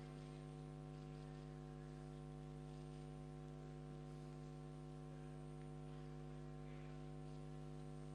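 Steady low electrical hum, several steady tones with no change, like mains hum on the sound line.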